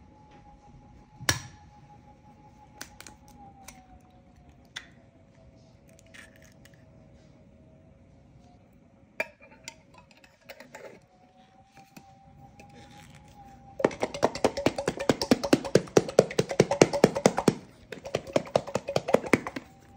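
An egg cracked sharply against a glass jar, a few small clicks and the jar's metal screw lid being put on, then the jar shaken hard for several seconds near the end: a rapid, loud rattling and sloshing of a raw chicken breast, egg and a garlic clove inside the glass.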